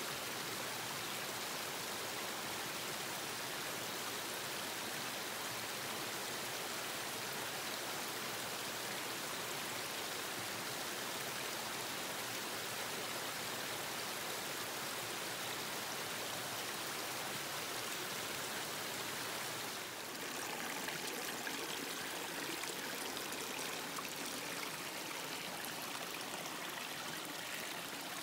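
South Fork Skokomish River flowing, a steady rush of water. The sound dips briefly and changes slightly about twenty seconds in.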